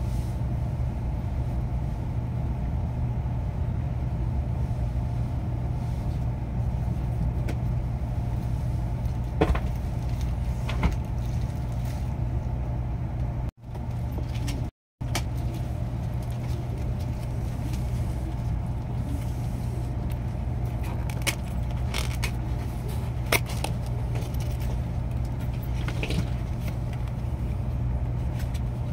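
Steady low rumble of a Shinkansen passenger cabin while the train is running, with a few faint light clicks. The sound breaks off for about a second about halfway through.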